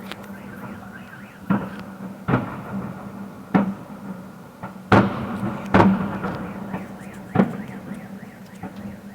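Fireworks going off in a display: six sharp booms at uneven intervals, each with a short echo. A steady droning tone runs underneath.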